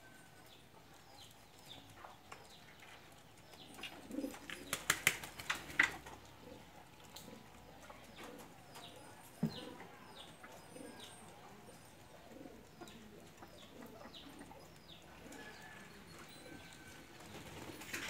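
Domestic pigeons cooing softly, with a burst of sharp wing claps a few seconds in and a single clap later. Short high bird chirps repeat throughout.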